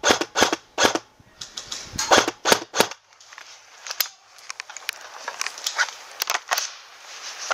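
Airsoft rifle (Magpul PTS Masada AKM) firing single shots, about a dozen sharp cracks in quick succession over the first three seconds. Then one more crack, and lighter clicks and knocks as its magazine is swapped.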